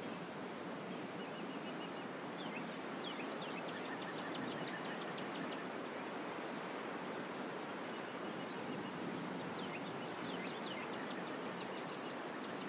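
Steady outdoor forest ambience with an even background hiss, over which small high chirps come in quick series, most densely about three to four seconds in and again near ten seconds.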